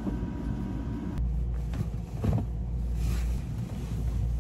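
Bed sheets and pillows rustling as they are handled, over a steady low rumble, with one short thump a little over two seconds in.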